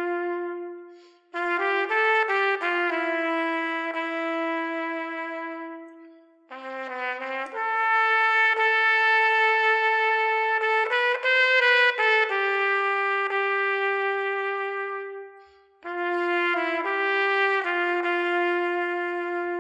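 A solo trumpet plays a slow melody of long held notes and short runs. It breaks off briefly between phrases.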